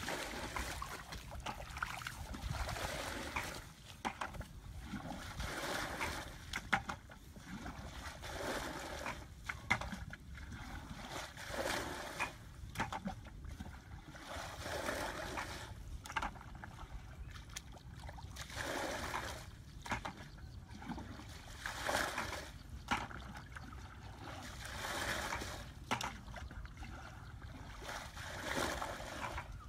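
Muddy water splashing as a bucket is dipped and its load flung out, again every three seconds or so: hand-bailing a shallow pool in a flooded rice paddy.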